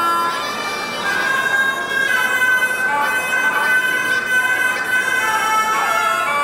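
Folk music: a loud, high melody of long held notes that step and glide between pitches.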